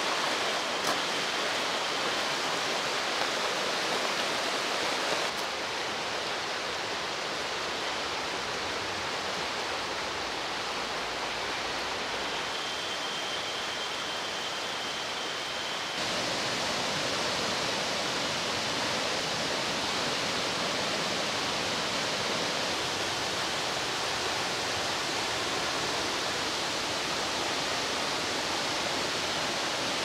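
Rushing water of a mountain stream: a steady, even rush that drops slightly about five seconds in and grows louder again at about sixteen seconds.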